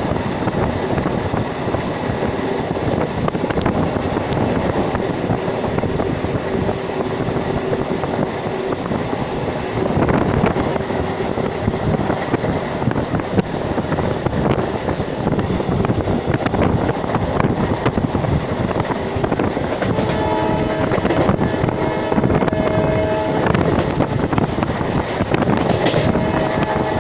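Indian Railways WAP-1 electric locomotive and its express train running, a steady rumble with wheel clatter. The locomotive's horn sounds for about three seconds some twenty seconds in, then again briefly near the end.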